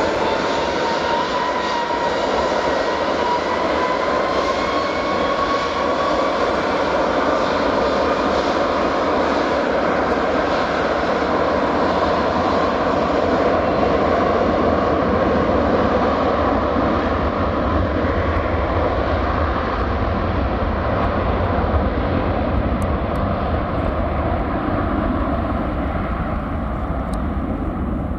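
Airbus A330-300 twin jet engines at takeoff thrust during the takeoff roll: a loud, steady jet noise with a whine that rises in pitch over the first few seconds. The high end fades toward the end as the aircraft moves away down the runway.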